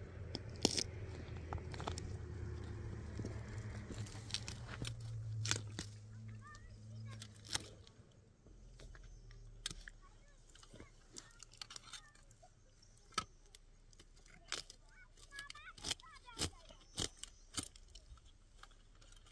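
Feathery green plant stems being cut with a hand blade and snapped and torn by hand, giving a scattered run of sharp clicks, snaps and crunches, with stones shifting underfoot. A low steady hum fills the first several seconds and fades out about eight seconds in.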